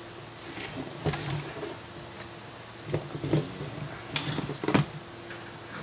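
A handful of light clicks and knocks, the loudest clustered about three to five seconds in, from hands handling the open metal chassis of a DVD/amplifier unit on a workbench.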